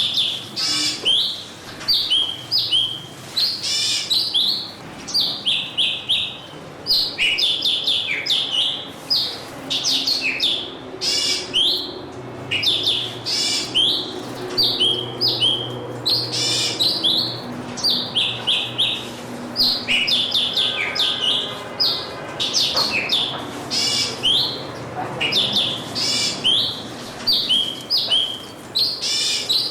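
Small songbirds chirping: many short, sharp calls that sweep down in pitch, repeating every second or so and overlapping one another.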